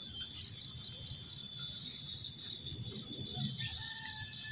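Steady high insect chorus of crickets and other insects, with a quick high call of four notes heard twice, about half a second in and again near the end.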